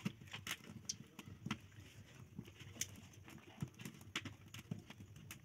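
Faint, irregular clicks and soft taps as rounds of raw pitha dough are lifted and shifted on a metal plate.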